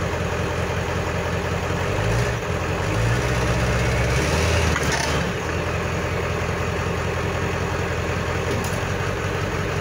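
Tow truck's engine idling steadily. From about two seconds in it runs louder and a little higher for around three seconds, then settles back to idle.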